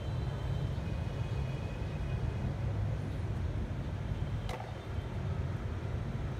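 Steady low rumble of background street traffic, with one light click about four and a half seconds in.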